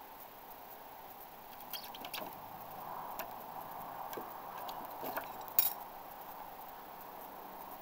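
Light clicks and clinks of steel throwing knives being handled at a wooden plank target, pulled from the board and knocking together in the hand. The sharpest click comes about five and a half seconds in.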